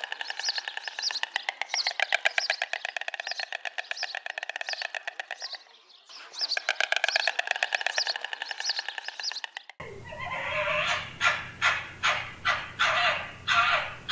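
White stork clattering its bill: a fast, dry rattle in two bouts with a short break between them. About ten seconds in it cuts to a red fox barking, a series of short sharp barks about three a second over a low hum.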